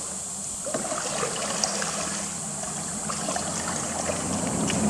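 Water splashing and trickling as a wooden paddle dips and pulls through calm river water beside a homemade PVC-pontoon kayak.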